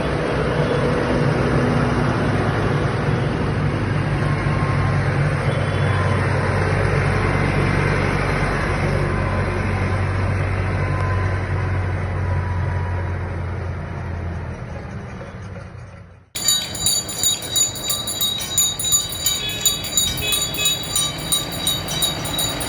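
Tractor engines droning as they pass, the sound fading away over about fifteen seconds. After a sudden cut, a rhythmic ringing clang comes about twice a second.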